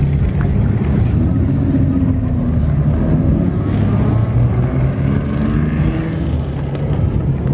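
Steady low rumble of car engines running, with faint voices in the background.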